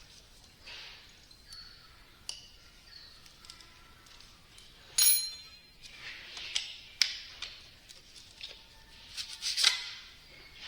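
Metal pump parts clinking and tapping as they are handled and fitted together, with a loud ringing metallic clink about five seconds in and more sharp clinks near the end.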